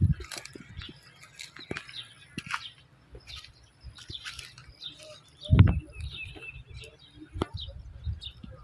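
Small birds chirping in short, repeated calls, with scattered clicks and a loud dull thump about five and a half seconds in.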